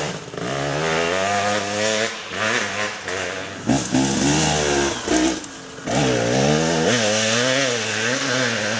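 Off-road dirt bike engines revving hard and easing off over and over, pitch swinging up and down, with short breaks where the throttle is chopped.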